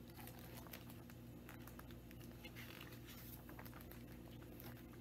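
Near silence: a steady low hum, with faint rustling and small clicks as the pages of a picture book are turned.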